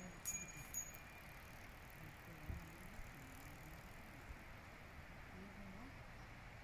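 A child's bicycle bell rung twice in quick succession near the start, two short bright rings that fade out quickly, over a quiet background.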